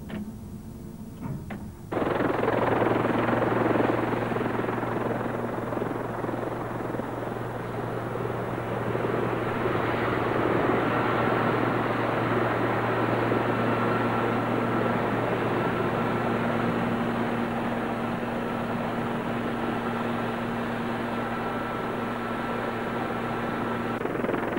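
Helicopter on a rig's helideck: steady rotor and turbine noise with a thin high whine, as it hovers just above the deck. It comes in suddenly about two seconds in, after a few faint knocks.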